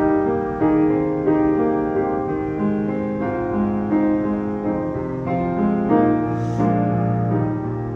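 Background music carried by piano, with held notes and chords changing about every half second.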